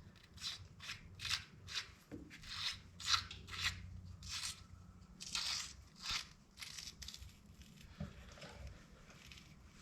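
Ratchet wrench being swung back and forth while a countershaft sprocket is fitted back on: a run of short, raspy clicking strokes, about two a second and uneven.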